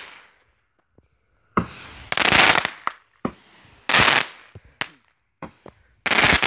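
Consumer fireworks going off: a string of loud bursts and sharp cracks, about one a second, as aerial shots fire and break.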